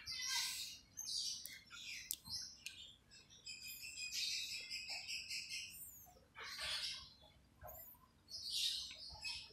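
Small birds chirping, short high calls coming in quick clusters, some sweeping up and down in pitch.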